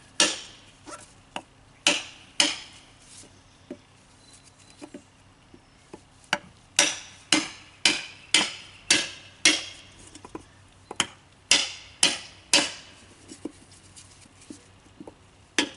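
Repeated hammer blows on a wooden block held against a tubeless lawn tractor tire, knocking the tire's bead loose from the rim. The strikes are scattered at first, then come in quick runs of about two a second.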